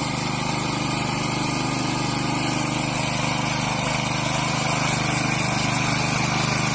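Small air-cooled petrol engine of a walk-behind mini power weeder running steadily under load as its rotary tines churn through wet mud.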